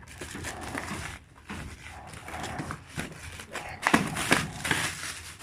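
Packing material in a parcel rustling and crinkling as it is pulled apart and items are lifted out of the box, with a louder cluster of scrunching about four seconds in.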